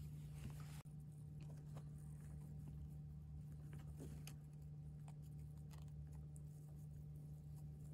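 Faint, scattered small clicks and rustles of hands handling a popsicle-stick pulley model, its wooden rod and pipe cleaners, over a steady low hum.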